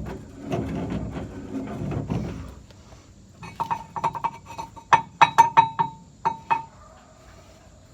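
A low rumble with scattered knocks, then a quick run of sharp clinks of hard objects knocking together, each ringing briefly. The loudest clinks come about five seconds in.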